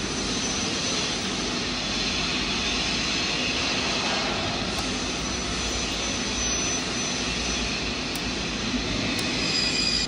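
A MIG welding machine's cooling fan running steadily with a low hum.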